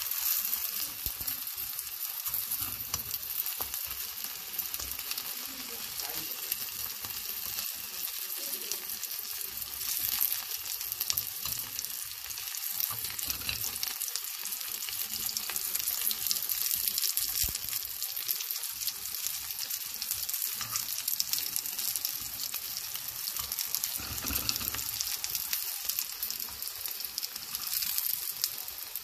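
Battered zucchini slices frying in oil in a pan: a steady crackling sizzle.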